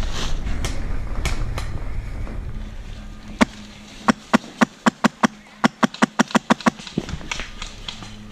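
A run of about fifteen sharp cracks, irregularly spaced a few a second over some three seconds, typical of airsoft guns firing. Before it, a low rumble like movement or wind on the microphone fades out.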